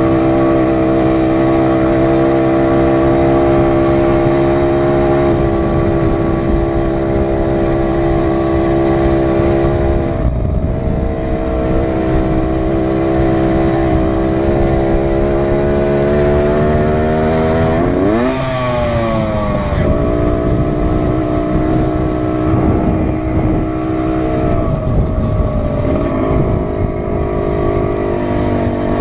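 Dirt bike engine running under way, the rider's own bike heard close up with rough wind and trail noise underneath. The engine note holds mostly steady, drops out briefly about ten seconds in, and dips and climbs quickly around eighteen seconds in as the throttle changes.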